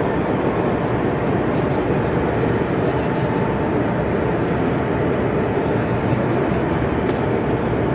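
Steady, even background noise of a busy exhibition hall, with no single sound standing out.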